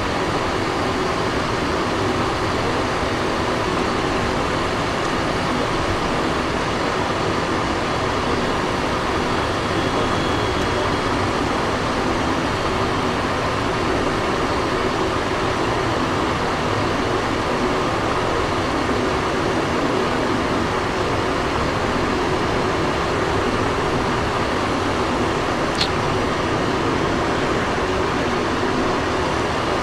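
Steady in-flight cabin noise of a Cessna Citation XLS business jet: airflow over the fuselage and the hum of its twin turbofan engines, unchanging throughout. A single brief click near the end.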